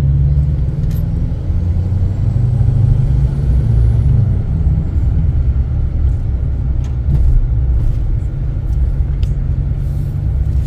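Pickup truck driving slowly, heard from inside the cab: a steady low engine and road rumble.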